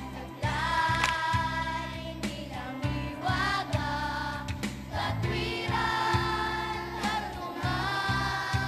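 Children's choir singing a song with instrumental accompaniment, in phrases with long held notes.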